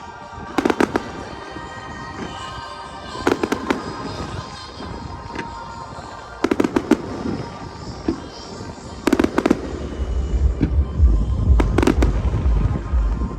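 Fireworks going off in clusters of several sharp bangs, one cluster every two to three seconds, over music. A low rumble builds up near the end.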